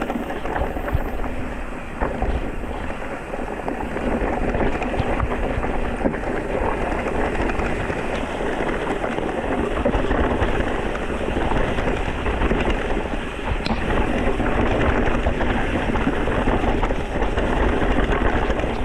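Electric mountain bike riding a rough trail: continuous tyre and drivetrain rattle with wind buffeting the microphone, and a few sharp knocks from bumps.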